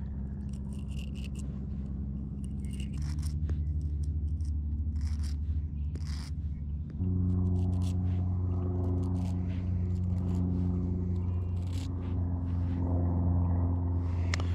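Hook file scraping over the point of a fishing hook in short, irregular strokes to sharpen it. Under it runs a steady low hum that steps up in pitch twice.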